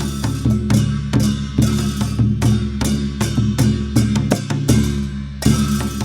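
Dhime, the Newar double-headed barrel drum, played in a quick, even rhythm of sharp strokes over a deep ringing drum tone.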